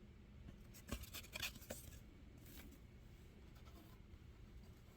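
Faint rustling and handling of old paper photographs and cards, with a few soft crinkles and taps clustered about a second in and another shortly after, over a quiet room.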